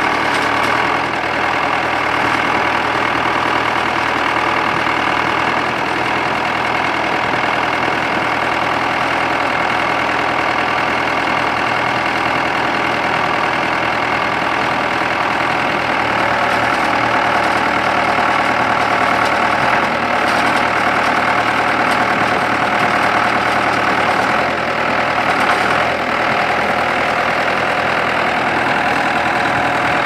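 2003 New Holland LB75 backhoe's four-cylinder diesel engine running steadily while the backhoe boom is worked.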